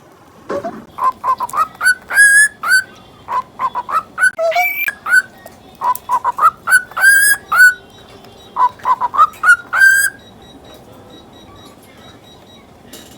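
Lutino cockatiel whistling and chirping a rapid string of short rising notes in four quick bursts, which stop about ten seconds in.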